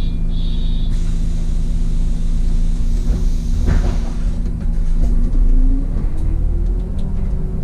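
City bus engine running in the driver's cab, with a short high beeping at the start and a hiss of air about a second in. The engine rises in pitch near the end as the bus pulls away from the stop.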